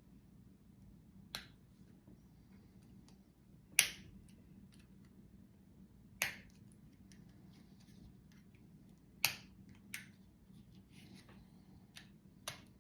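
Sharp, irregular clicks and snaps of the Nokia 2260 cellphone's cheap plastic parts being handled and pried apart, about six in all, the loudest about four seconds in.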